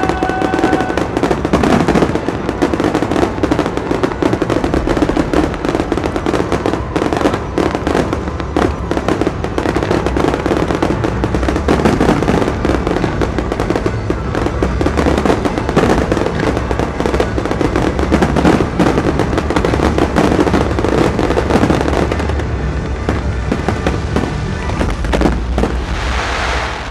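Aerial fireworks going off in a dense, continuous barrage: rapid overlapping bangs and crackling from many shells bursting at once.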